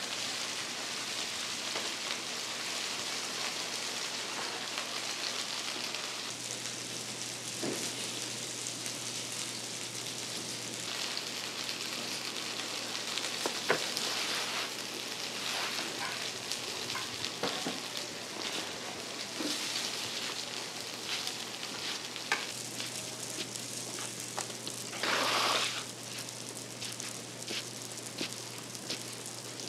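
Oil sizzling steadily as food fries, with scattered light clicks and knocks. Late on there is a louder rush of sizzling about a second long.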